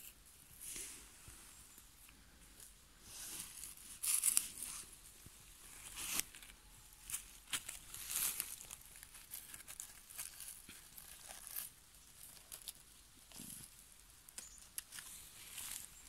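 Dry forest floor of pine needles, dead leaves and moss rustling and crackling in irregular bursts as it is handled and stepped on, loudest about four seconds in.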